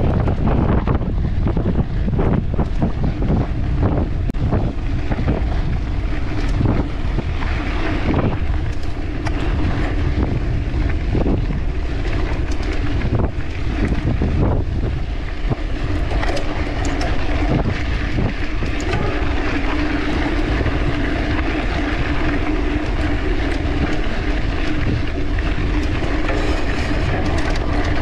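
Mountain bike ridden fast over rough trail: wind buffeting the camera's microphone, with the bike rattling and knocking over bumps. A steady hum joins in about halfway through.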